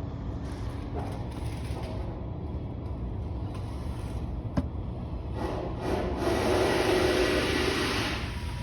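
Hand work on small cabinet-door hardware: a sharp click about four and a half seconds in, then a few seconds of scraping and rubbing, over a steady low hum.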